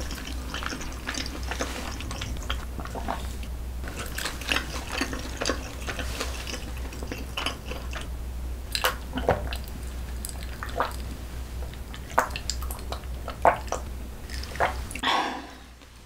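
Close-miked eating sounds: wet chewing and mouth smacks on a mouthful of saucy noodles and chicken, then swallowing gulps of a drink from a glass. The sounds come as many short, sharp clicks over a low steady hum.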